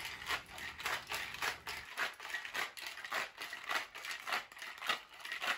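Metal cocktail shaker being shaken hard, its contents rattling in a steady rhythm of about three to four strokes a second, working the jam into a martini.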